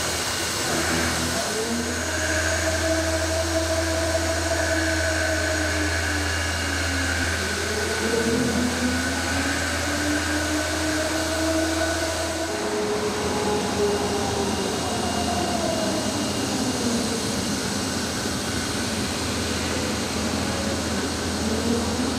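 Intermac Master 45 five-axis CNC stone work centre machining a stone vase under a coolant water spray: a steady machine hum and hiss, with several whining tones that slowly rise and fall in pitch. The low hum drops about halfway through.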